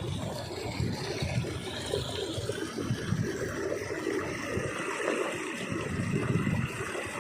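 Fast-flowing water rushing in a ditch, a steady churning noise heaviest in the low end.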